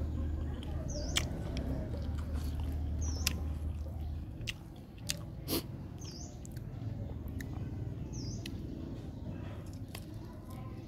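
Close-up chewing and biting of fruit, with scattered sharp clicks and smacks. A short high chirp repeats every second or two in the background.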